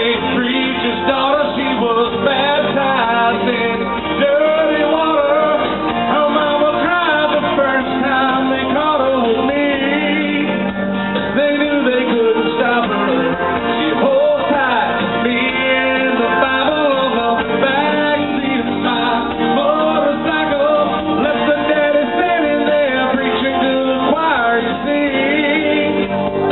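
Karaoke backing track of a country-rock song with guitar, with a man singing along through a microphone over the PA.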